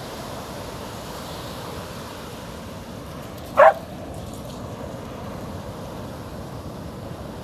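A border collie barks once, sharply, about halfway through, at the breaking waves. Under it runs the steady wash of surf on the shore.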